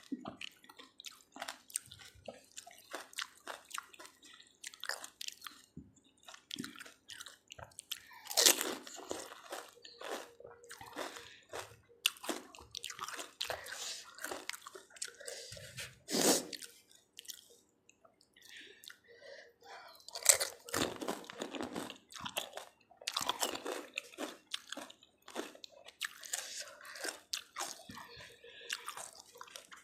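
Close-miked crunching and chewing of pani puri, the crisp hollow fried shells cracking between the teeth with steady wet chewing, and a few louder crunching bites along the way.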